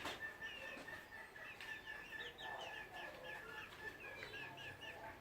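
Chickens calling: a quick run of short, high chirps, several a second, over a faint steady high whine.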